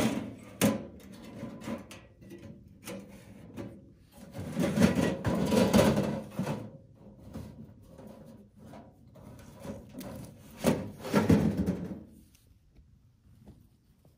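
Sheet-metal parts of a small folding wood stove being slid, stacked and shut away inside its box: bouts of scraping and knocking metal, the loudest about five seconds in and again near eleven seconds.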